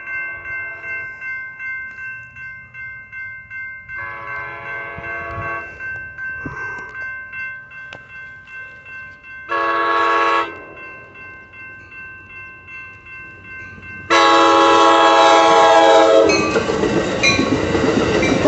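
Railroad crossing bells ring steadily while an approaching Amtrak San Joaquin passenger train sounds its horn in a series of blasts. There is a blast about four seconds in, a louder short blast near ten seconds, and a long, loudest blast from about fourteen seconds as the train reaches the crossing. Near the end comes the rushing rumble of the bilevel passenger cars passing through the crossing.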